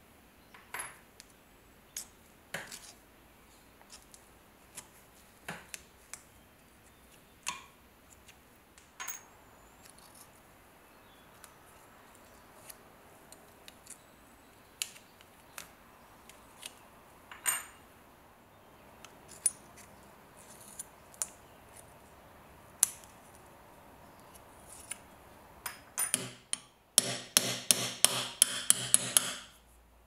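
Scattered small metal clicks and taps from an old Swiss Army knife's blades and parts being handled. Near the end comes a quick, even run of about eight sharp hammer taps on the knife, roughly three a second.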